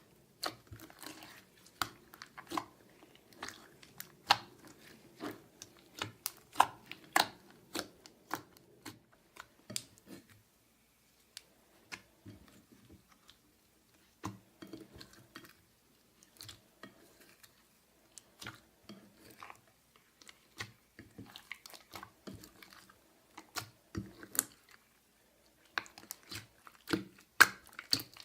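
Slime being kneaded and pressed by hand, giving irregular sticky clicks and pops, with a quieter pause about halfway through.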